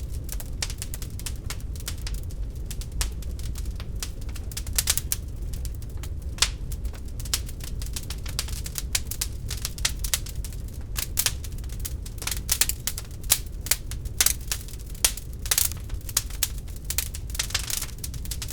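Real wood fire crackling in a fireplace: irregular sharp pops and snaps, a few louder ones scattered through, over a steady low rumble.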